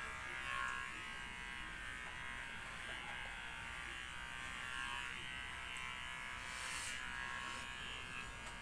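Electric hair clippers buzzing steadily as they are run over a nearly shaved scalp.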